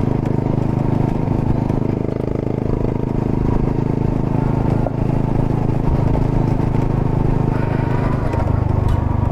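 Honda Monkey's single-cylinder four-stroke engine running steadily as the bike is ridden, with the engine note shifting slightly near the end.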